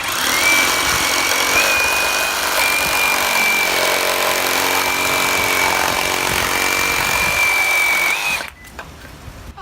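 Hitachi CR36DA 36-volt cordless reciprocating saw running, its high motor whine rising briefly as it spins up. It then holds steady for about eight seconds and cuts off suddenly.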